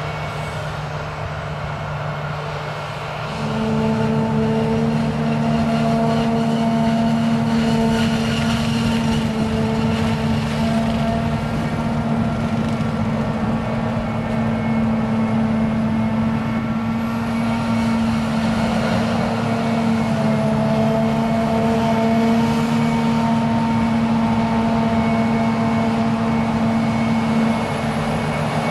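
New Holland self-propelled forage harvester running steadily at work: a continuous heavy machine drone. About three seconds in, a strong steady hum joins it and the sound grows louder.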